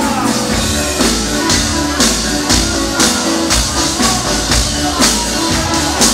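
Live band playing a rock song: guitars and drums with a steady beat of about two hits a second, and a singer at the microphone.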